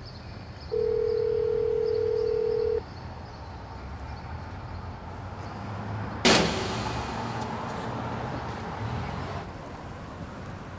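Telephone ringing tone heard down the line: one steady beep of about two seconds as a call rings unanswered. About six seconds in, a sudden loud hit with a fading tail that cuts off a few seconds later.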